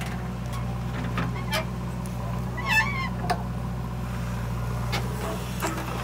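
Diesel engine of a JCB 3DX backhoe loader running steadily under hydraulic load as it digs and swings its bucket, with a few short clunks. A bird gives a brief wavering call about three seconds in.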